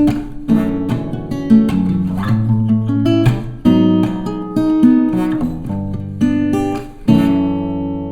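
Background music on guitar, plucked and strummed chords. The last chord, near the end, rings out and fades.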